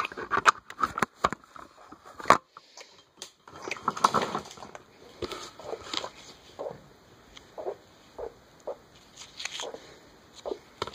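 Handling noise close to the microphone: irregular clicks, taps and rustles as the phone and a clear plastic coin holder are handled in cotton gloves, with a denser patch of rustling about four seconds in.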